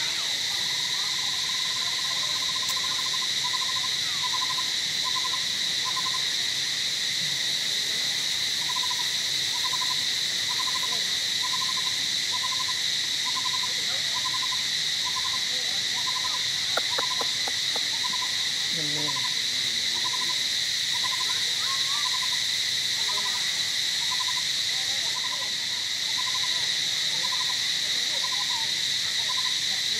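Steady high-pitched drone of a forest insect chorus, cicadas or crickets, with a bird's short note repeated about once a second over it, pausing briefly a quarter of the way in.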